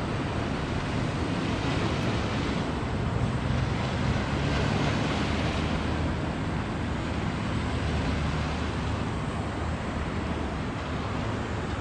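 Small coastal cement carrier passing close, its diesel main engine a steady low drone under the rush of water along the hull and wake, with wind on the microphone. The sound swells a little around the middle as the engine room and funnels come abeam.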